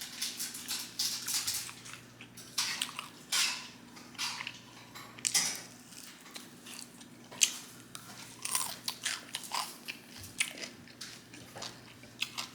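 Close-miked biting and chewing of crispy fried chicken wings: a run of irregular crunches, over a faint steady hum.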